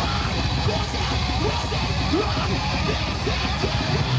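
Live rock band playing, a dense noisy wash of electric guitar without a break.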